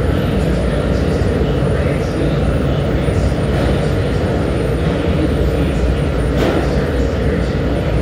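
Annealing furnace firing in the middle of a burn: a loud, steady rushing noise of combustion, heavy in the low end.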